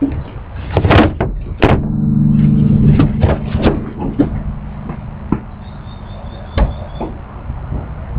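Acoustic guitar being handled and set down in a pickup truck bed: two loud bumps, then the strings ring out as a sustained chord for a couple of seconds, followed by scattered knocks and thumps against the truck bed.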